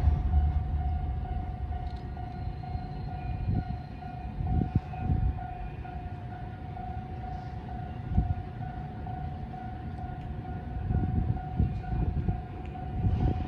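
Warning alarm at the bascule bridge's railway level crossing, sounding as one steady, unbroken high tone, with irregular low rumbles underneath.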